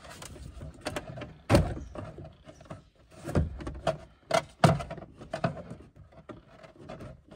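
The lower dash trim panel of a 1979 Ford Capri being worked loose and pulled down from under the steering column: a run of irregular knocks and clatters. The loudest knocks come about one and a half seconds in and again near four and a half seconds.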